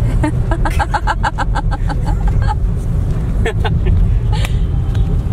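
Car cabin noise while driving: a steady low rumble from the road and engine. Over it, in the first couple of seconds, comes a quick run of about a dozen short pitched chirps, roughly six a second, and a few sharp clicks follow later.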